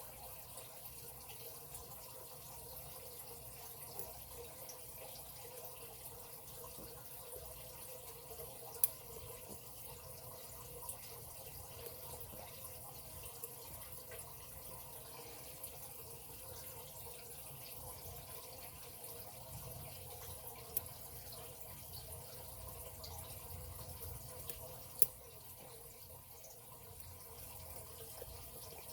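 Lock pick and tension wrench working the pins of a padlock: a few sharp metallic clicks, the loudest about 9, 21 and 25 seconds in, over a faint steady hiss.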